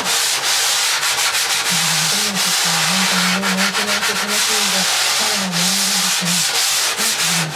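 Hand sanding block rubbed back and forth over a foam surfboard blank: a steady, loud hiss broken by brief gaps as each stroke changes direction.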